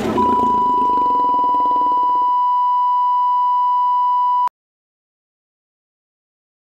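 A steady, pure electronic beep tone at one pitch, held for about four seconds and cutting off suddenly. It has the sound of a test tone or bleep.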